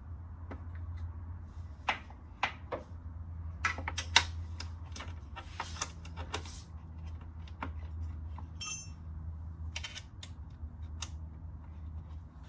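Small metal parts and hand tools clicking and clinking at irregular intervals during hands-on work. There is a short ringing metallic clink near the end and a steady low hum underneath.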